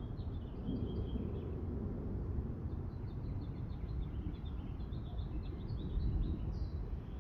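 Small birds chirping in quick, repeated short notes over a steady low rumble of storm noise.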